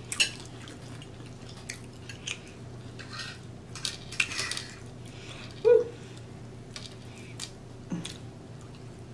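Close-miked eating: chewing, lip smacks and crisp crackles as fingers tear meat from a fried pork chop, heard as scattered short clicks, with one louder short sound a little past halfway.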